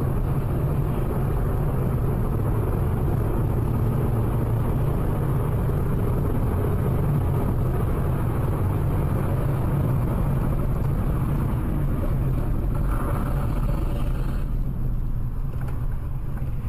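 Steady road and engine rumble of a car driving on a highway, heard from inside the cabin through a dashcam microphone. The higher hiss falls away about two seconds before the end.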